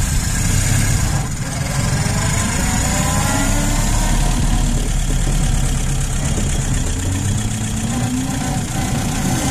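The four-cylinder engine of a 1932 Citroën C4F runs as the car pulls out and gathers speed, heard from inside the open cabin. A whine climbs in pitch over the first few seconds and again near the end.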